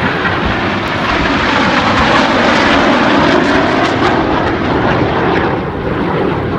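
Aircraft engine noise as a display plane flies past, swelling to its loudest about midway and then easing off.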